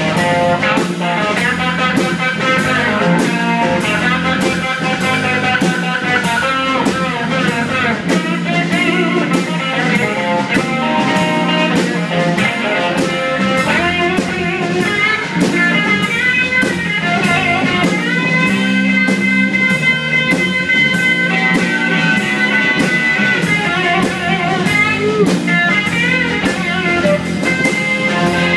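Live blues band playing an instrumental section: electric guitar, electric bass and drum kit keeping a steady beat, with a harmonica played into the vocal mic.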